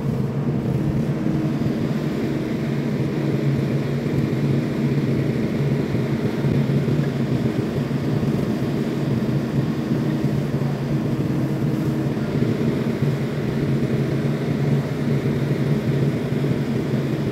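Kobelco SK75SR excavator's diesel engine running steadily while it works, an even drone with no breaks.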